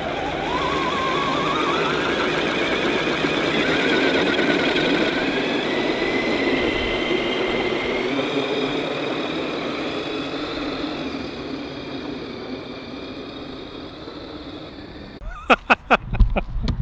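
Traxxas X-Maxx 8S RC truck's brushless electric motor and drivetrain whining under load as it tows a full-size car; the pitch rises about a second in, climbs slowly, then fades. A few sharp clicks near the end.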